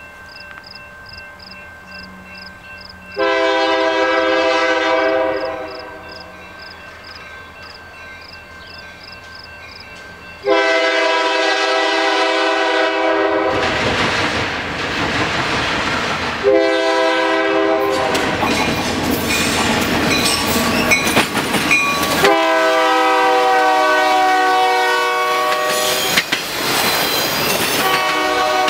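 Lead SD40-2 diesel locomotive's multi-chime air horn sounding long, long, short, long, the standard warning for a grade crossing, as the freight train approaches. From about halfway on, the rumble and wheel clatter of the locomotives and autorack cars passing close by grows loud under the last two blasts.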